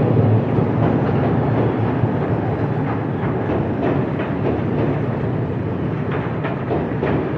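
Train running on the rails: a steady rumble with irregular wheel clicks over the track, slowly getting quieter.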